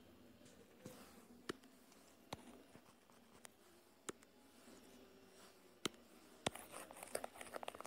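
Faint, scattered taps on a tablet's touchscreen: about six single taps, then a quick flurry of small ticks near the end, over near silence.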